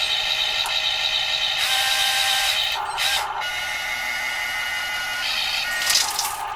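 Radio-controlled construction models' electric motors and gearboxes whining steadily as the machines work, the pitch shifting a few times, with a brief harsher burst near the end.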